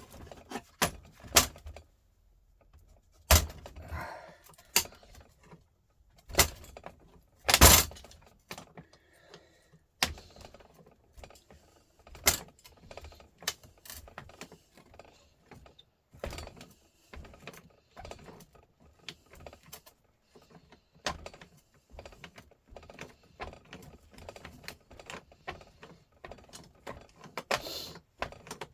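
Irregular metallic clinks, clicks and knocks of hand tools against the parts of a Volvo truck starter motor being taken apart, with a few sharp, louder knocks in the first eight seconds and lighter clinking after.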